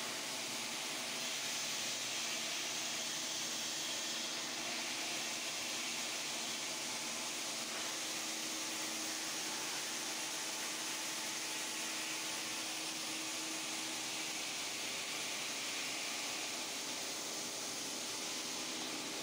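Radial-arm granite slab polishing machine running: a steady hiss from the spinning polishing head grinding the wet stone, with a faint steady motor hum underneath.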